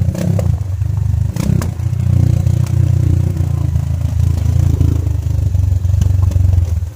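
Motorcycle engine running steadily while riding over a rough, rocky dirt road, with the bike rattling over the stones. There are sharp knocks at the start and about a second and a half in.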